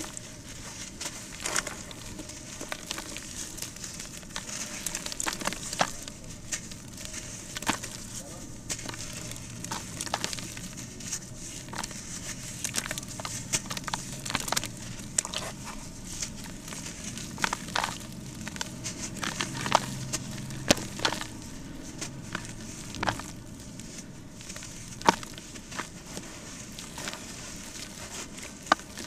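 Hands crumbling dusty lumps of reused cement into a basin of water: irregular sharp crunches and crackles as the lumps break apart and pieces drop into the water.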